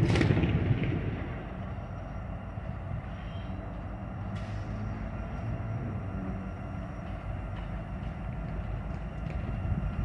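Approaching freight train led by a Union Pacific SD70ACe diesel locomotive: a steady low engine rumble that grows a little louder near the end. A road vehicle passes close by in the first second, the loudest sound.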